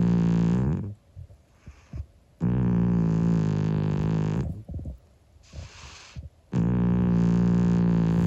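An elderly cat snoring loudly in its sleep: long snores of about two seconds each, held on one steady low, buzzing pitch, with quiet breathing gaps between. One snore tails off about a second in, a full one falls in the middle, and a third starts near the end.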